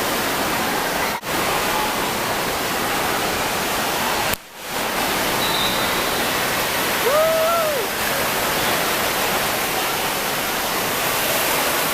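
Steady rushing of water from a water park's falling and splashing water features, cut off briefly twice. A short high call rises and falls about seven seconds in.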